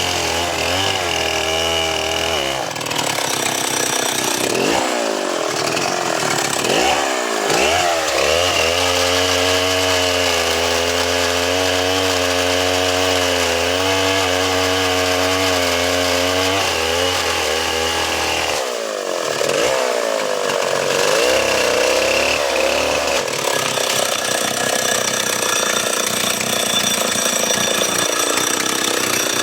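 Chainsaw running at high speed while cutting a tree, its engine pitch dipping and recovering as the chain loads up in the wood, with a brief drop in speed about two-thirds of the way through.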